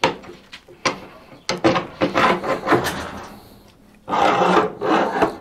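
Wooden beech front-vise chop being pushed onto its guide rods into the workbench for a trial fit: a knock, a few clicks, then wood rubbing and scraping, with a longer sliding rub about four seconds in.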